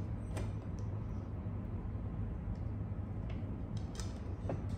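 Banana peel being bitten and pulled off with the teeth: a few short, wet mouth clicks and smacks, over a steady low hum.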